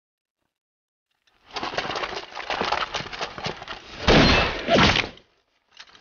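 Dense rifle fire in a battle: rapid overlapping shots start about a second and a half in and are heaviest and loudest about four seconds in. They stop sharply just after five seconds, and a short burst of shots comes at the end.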